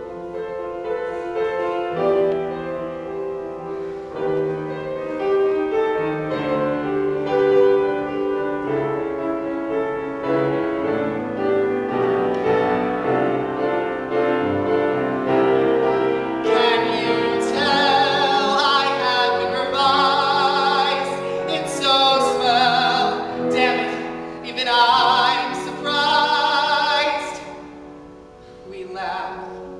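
Grand piano accompaniment playing a slow song; about halfway in, a man's voice comes in, singing loudly with vibrato over the piano.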